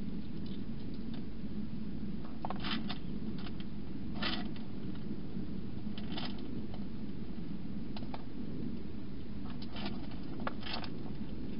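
A wild hedgehog eating inside a clear plastic feeding box: short, crisp crunching noises at irregular intervals, every second or two, over a steady low background hum.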